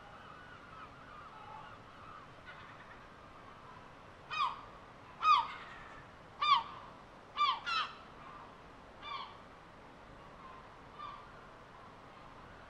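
Gulls calling over a faint steady hiss: about seven short calls that drop in pitch, coming one to two seconds apart from about four seconds in, with the loudest near the middle.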